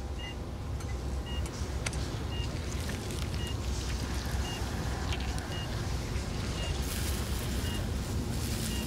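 Operating-room patient monitor beeping steadily, one short high beep about once a second, tracking the patient's heartbeat, over a continuous low hum. A hiss rises briefly near the end.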